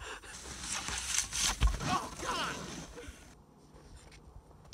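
Snowboard crashing through snow: scraping and spraying snow with a low thump about a second and a half in, and a voice shouting just after.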